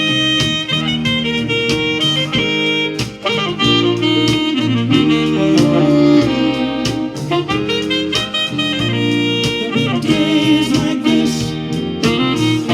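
Instrumental break in a soul-pop song: a saxophone solo over a backing band.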